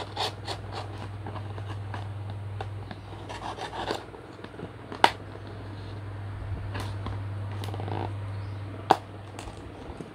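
A plastic courier mailer being opened by hand: crinkling, scratching and scraping of the plastic and packing tape. Two sharp clicks come about five and nine seconds in, over a steady low hum.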